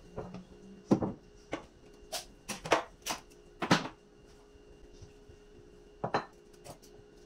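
Irregular knocks and clatter of kitchen items being handled and set down during cleaning: about ten sharp knocks in the first few seconds, a pause, then a few more near the end.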